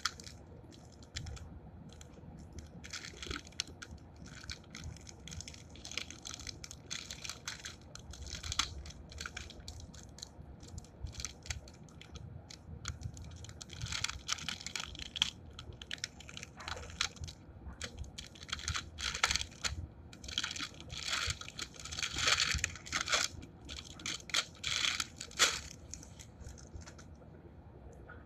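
Packaging crinkling and crackling as it is handled close to the microphone, in irregular bursts that grow denser in the second half.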